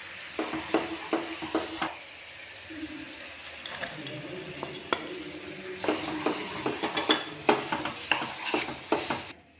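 Wooden spatula knocking and scraping against a nonstick frying pan as chopped dried fruit and nuts are stirred into hot caramelized sugar syrup, over a faint sizzle. The quick strokes come in runs, busiest in the last few seconds.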